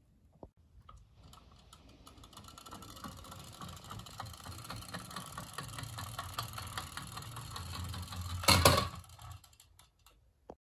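Small toy car's gear motor whirring with fast fine ticking as its plastic wheels roll over a wooden board and floor, growing louder, with a sharp knock about eight and a half seconds in.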